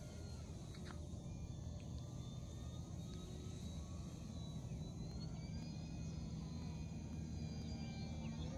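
Radio-controlled model plane's motor droning steadily as the plane flies overhead, with a thin whine that slides up and down in pitch as it passes.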